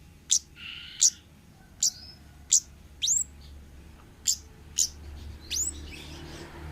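Kemade (orange-headed thrush) giving repeated short, sharp, high-pitched 'cit' calls, about eight single notes at uneven intervals, each a quick sweep in pitch.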